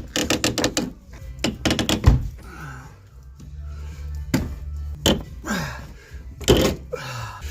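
A fast run of sharp clicks in the first second, then scattered knocks and a heavy thunk about two seconds in, from tools working a tight tie rod end on a truck. A song plays in the background.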